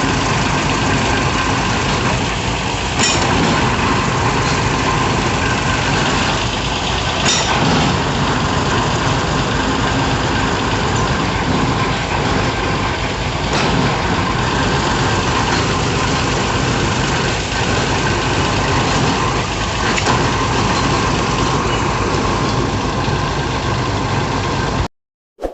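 Diesel engine of a hydraulic piling rig running steadily, with a few short sharp knocks every few seconds. The sound cuts off suddenly near the end.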